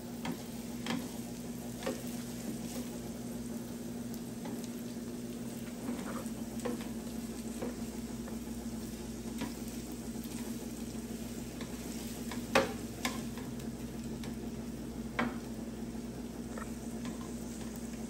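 Food sizzling steadily on a Blackstone 22-inch E-Series electric griddle, with scattered sharp clicks and scrapes of a metal spatula flipping and turning the pieces on the cooking surface. The loudest clack comes about two-thirds of the way through.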